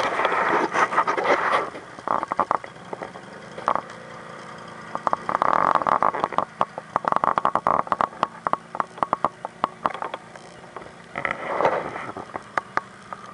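Irregular sharp clicks, scrapes and short rushes of noise close to the microphone, over a faint steady off-road vehicle engine idle.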